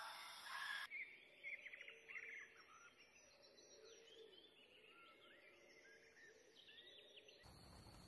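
A brief rush of hiss in the first second, then faint chirps and short gliding calls of small songbirds, several a second, thinning out near the end.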